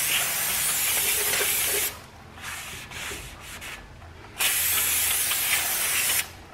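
Aerosol brake cleaner sprayed through its straw onto a new brake rotor's hub in two long hissing bursts. The first ends about two seconds in, and the second runs from about four and a half to six seconds.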